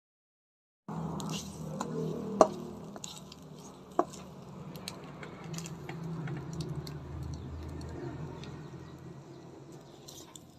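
Starting about a second in, a utensil stirs and scrapes scrambled eggs in the non-stick pot of an electric multi-cooker over a low steady hum. There are scattered light clicks and two sharp knocks of the utensil on the pot in the first few seconds.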